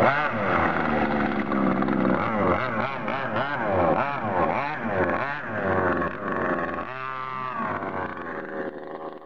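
Magnum 57 RC boat's motor running at speed, its pitch swinging up and down quickly over and over. Near the end the note steadies and fades.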